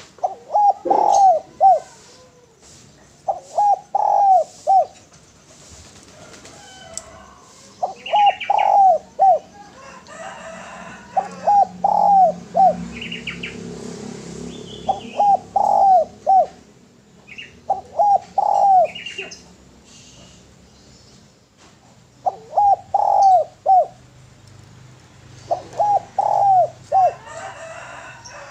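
Spotted dove cooing over and over: about eight phrases, each a quick run of three or four notes, one every three seconds or so. Brief higher chirps come between the phrases.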